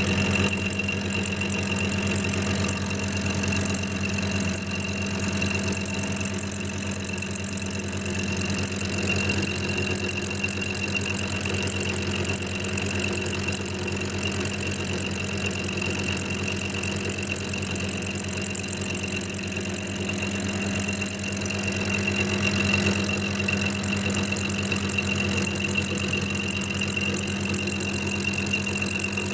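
Clarke CL430 metalworking lathe running as a milling machine, its dovetail cutter slowly cutting a mild steel block: a steady motor hum with a high, even whine and a fast, even pulsing from the cut.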